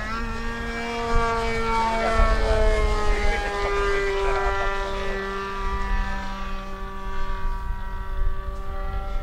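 Skymaster radio-controlled aerobatic model airplane flying overhead, its motor and propeller giving a steady droning tone that sinks slightly in pitch a few seconds in as the plane passes. A low rumble comes and goes beneath it.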